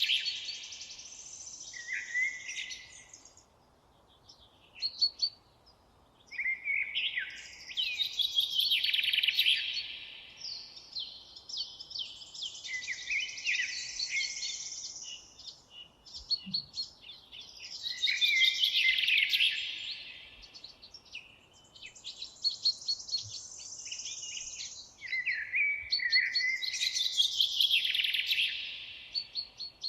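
Songbirds singing in a forest: bright, rapidly trilled song phrases of two to three seconds, each falling in pitch, repeated every few seconds with short pauses, and a thin, very high note now and then.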